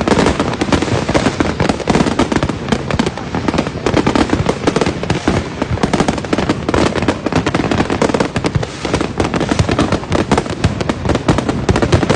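Fireworks going off nonstop: a dense, continuous barrage of overlapping bangs and crackles with no gaps.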